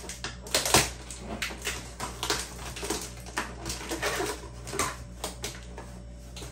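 Fingernails picking and scratching at the packing tape on a cardboard box: irregular clicks and scrapes, thinning out near the end.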